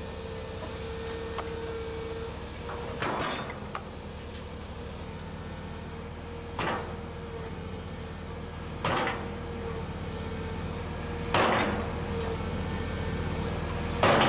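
Hydraulic excavator's diesel engine running steadily, with about five loud steel clanks two to three seconds apart as its bucket pushes the steel slide-rail shoring frame and panel down into the trench; the last two clanks are the loudest.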